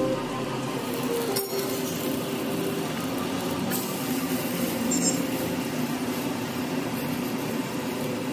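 Oats chilla batter sizzling steadily in a non-stick frying pan, with a single sharp clink of a metal spatula about a second and a half in.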